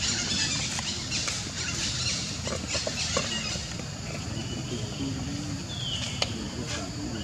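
Outdoor ambience: a steady hiss with a few faint clicks and short, faint high falling calls.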